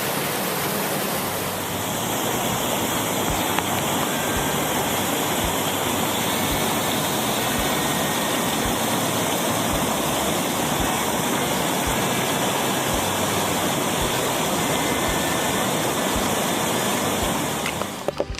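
Steady rush of river water pouring over falls and rapids, cutting off suddenly near the end.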